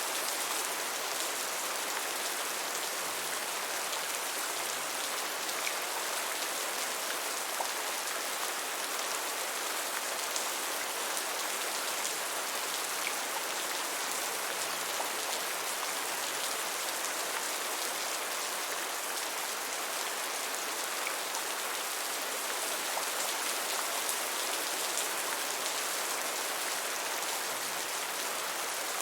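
Steady rain falling, an even hiss with fine scattered drop ticks and no change in intensity.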